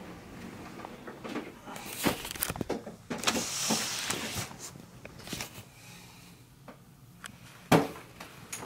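Rummaging in a woven wicker storage basket: scattered knocks, a rustling scrape as the basket is pulled and searched, and one sharp thump near the end.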